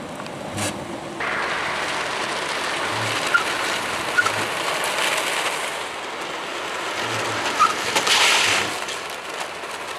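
Road and wind noise from a car driving on an outdoor test track: a steady hiss that steps up about a second in and eases near the end, with a few faint short chirps.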